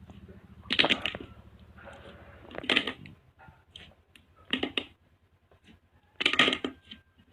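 Slime being squeezed and pressed by hand, making four crackling, clicking squishes spaced a couple of seconds apart.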